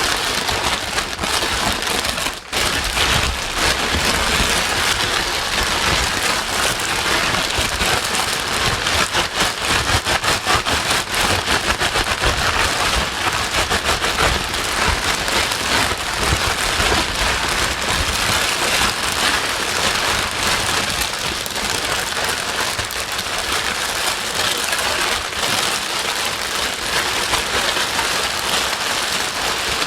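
Steady rain-like white noise, an even rushing hiss with a fine pattering texture, played to calm a crying baby. It dips briefly about two and a half seconds in.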